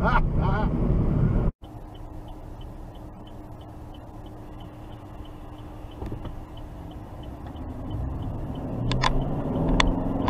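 Car cabin sound: loud road noise from driving at speed cuts off abruptly about a second and a half in. Then a car waits at a light, its engine idling with an indicator ticking steadily. Near the end the engine note rises as the car pulls away into the left turn.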